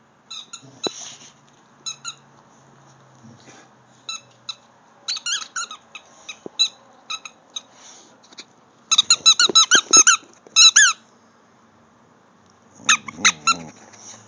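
A dog's squeaky toy being squeaked over and over as the dog chews it: scattered single squeaks at first, then quick runs of squeaks about nine seconds in and again near the end.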